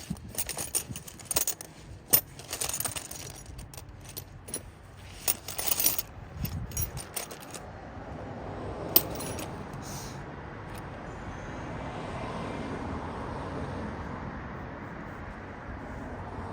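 Metal tools and car parts clinking and rattling in a quick run of sharp clicks, followed by a single click about nine seconds in; a steady rushing noise takes over from about eight seconds in.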